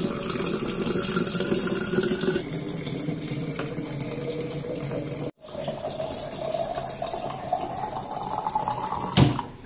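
Tap water pouring into plastic and glass water bottles, the filling note rising slowly as each bottle fills, with a sudden break about five seconds in. A short knock near the end.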